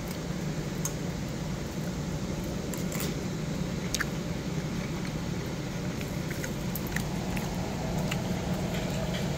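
Steady low mechanical hum, with a few light clicks of chopsticks and dishes.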